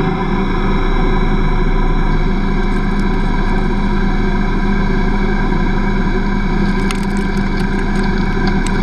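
Metal lathe taking an external turning cut: a steady motor and spindle whine mixed with cutting noise, with a few light ticks about seven seconds in and again near the end.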